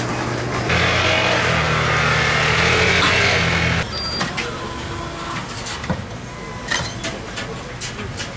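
A small countertop machine runs for about three seconds with a hiss and a steady low hum, then cuts off abruptly. A short high beep follows, then scattered clicks and knocks.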